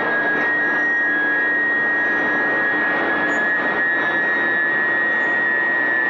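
Induction heating furnace line running while it heats steel bars: a steady, loud industrial roar with a high whine held at two close pitches and a fainter low hum underneath.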